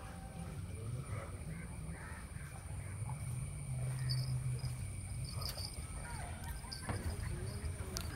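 Low, fluctuating rumble on the microphone with scattered short bird calls.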